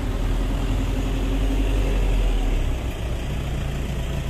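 Slow street traffic: the steady low hum of car engines running in a line of cars. The deepest part of the hum fades about two and a half seconds in.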